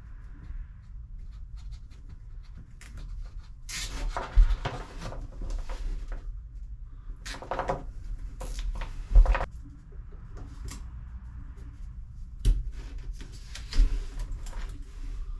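Handling noise as things are moved about in a small compartment: stretches of rubbing and rustling with four sharp knocks, the loudest a little past the middle.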